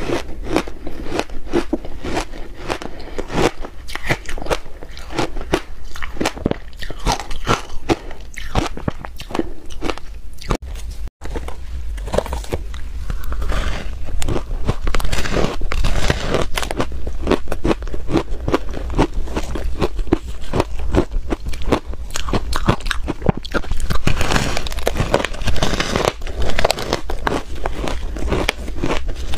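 Close-up crunching and chewing of ice: a dense run of crisp bites and crunches, first of small ice flakes, then, after a brief break about eleven seconds in, of bites into a slab of packed crushed ice.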